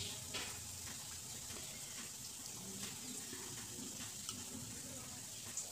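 Faint steady hiss with a few soft clicks of a steel spoon against a plate and bowl as thick tamarind-date chutney is dolloped onto curd-covered vadas.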